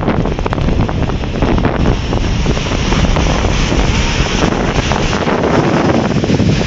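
Strong sea wind buffeting the camera's microphone, a loud, continuous rumbling rush, with the wash of surf beneath it.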